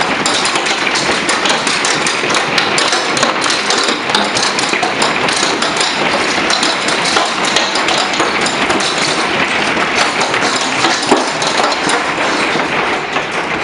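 Hailstorm: hailstones striking in a dense, loud, unbroken clatter of many small impacts.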